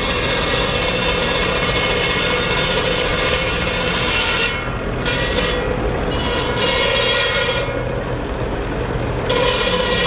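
Ferguson TE20 tractor driving an A-LE 19 cordwood sawbench: the circular saw blade rasps through logs over the steady running of the tractor engine. The cutting noise breaks off twice in the second half, leaving mostly the engine, then resumes near the end.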